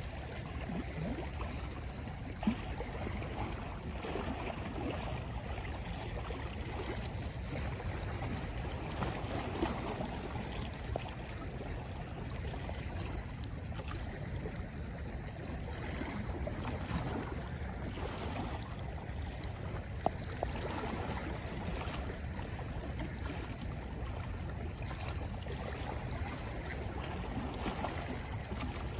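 Sea water washing and lapping steadily at the shore, with two brief sharp clicks, one a couple of seconds in and one about two-thirds of the way through.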